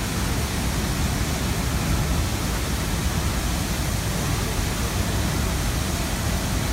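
Tegenungan Waterfall's water plunging into its pool: a steady, even rush of falling water with no let-up.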